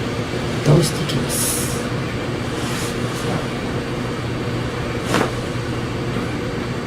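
Two short pops from a chiropractic adjustment, the louder about a second in and a sharper one about five seconds in, over a steady low hum.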